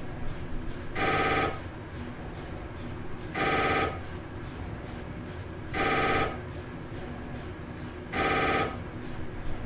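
Telephone ringing: a short warbling trill repeats four times, about every two and a half seconds, over a steady low hiss.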